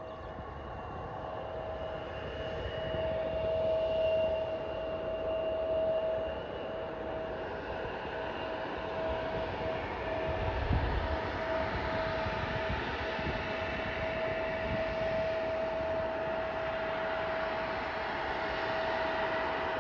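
Distant jet airliner's turbofan engines running with a steady whine over a wide rushing noise, growing a little louder over the first few seconds and then holding. A brief low thump about ten seconds in.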